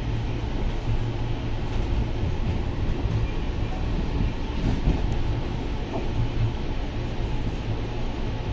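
Steady low rumble and hum of an Indian Railways air-conditioned coach, heard from inside the carriage.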